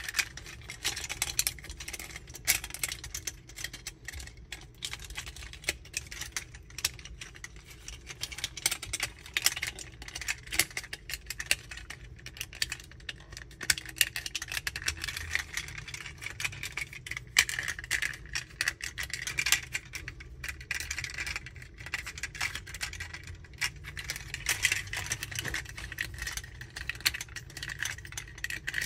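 Hard plastic parts of a Magic Square MS-02 Light of Peace transforming robot figure clicking, rattling and snapping into place as they are folded and pressed by hand, in an irregular run of small clicks.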